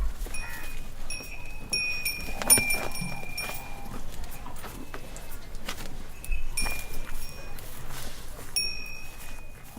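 Small high-pitched temple bell struck repeatedly, about four strikes close together early on, then two more after a pause, each ringing on for a second or more. A background of scattered clicks and knocks runs under it.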